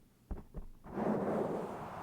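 A microphone being scratched and rubbed fast and roughly right on its body: two short knocks, then from about a second in a continuous rough scratching.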